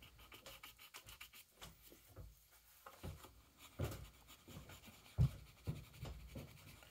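Graphite pencil sketching on paper: quick, faint scratching strokes, with a couple of soft low thumps about four and five seconds in.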